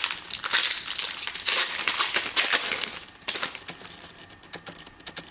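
Plastic trading-card pack wrappers crinkling as packs are opened and handled, with dense crackling for about three seconds. A sharp click follows, then quieter rustling.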